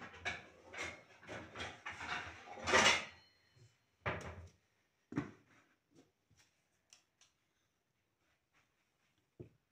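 Kitchen handling sounds: a few seconds of scraping and knocking, like a cupboard or drawer being opened and rummaged in. Then come single knocks about four and five seconds in as a metal pot lid is set on the plastic dough bowl, followed by a few faint clicks.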